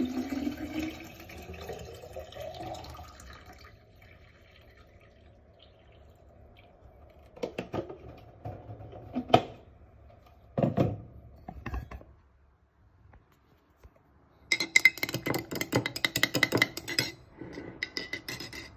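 Liquid pouring into a glass jar, its pitch rising as it fills. A few knocks and clinks follow, then a metal spoon stirring fast in the glass jar, a rapid run of clinks near the end.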